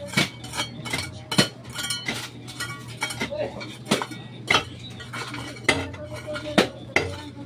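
A steel shovel and a hand tool scraping and clinking into gravelly soil and concrete rubble, in irregular sharp strikes about two a second, some ringing briefly.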